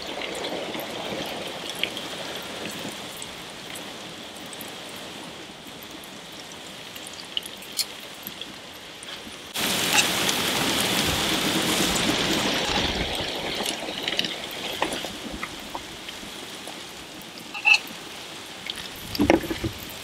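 Food sizzling on a hot gas grill, with a few sharp clicks of metal tongs. About halfway through the sizzling suddenly grows louder, then fades over the next few seconds.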